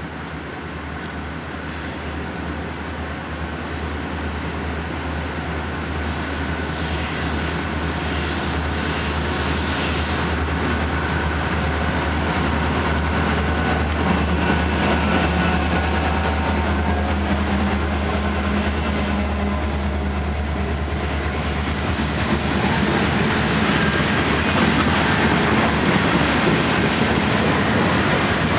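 Freight train led by EMD diesel locomotives approaching and passing, the engines' steady low drone growing louder through the first half. From about two-thirds of the way in, the freight cars roll by on the rails.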